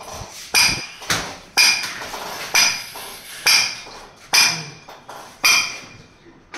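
Hammer blows in a steady rhythm, about one a second, each strike sharp with a bright metallic ring.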